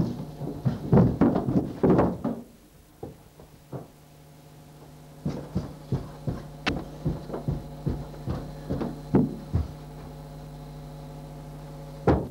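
Thumps and knocks of people moving on carpeted house stairs: a cluster of thumps, then a run of evenly spaced footfalls coming down the stairs, then one heavy thump near the end. A steady low hum runs underneath from a few seconds in.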